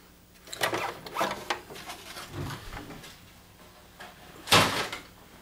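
Plastic top cover of a projector being worked loose and lifted off its base, with scraping and creaking plastic. There is one louder sharp clack about four and a half seconds in.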